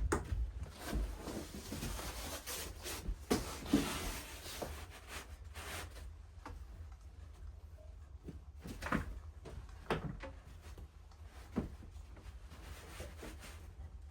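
Objects being handled: scattered light knocks and rubbing or scraping, busiest in the first few seconds, over a steady low hum.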